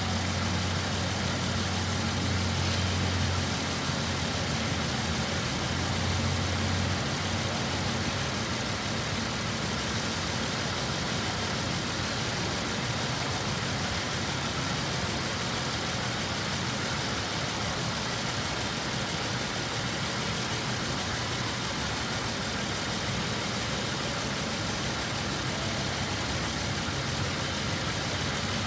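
2011 Mazda CX-9's V6 engine, at about 210,000 km, idling steadily with no revving, over an even hiss.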